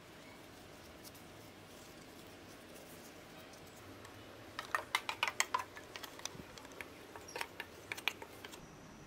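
Hand food-preparation sounds: banana leaves being folded and crinkled and batter spooned out, heard as a bunch of quick crackles and clicks from about halfway through, after a few seconds of quiet room noise.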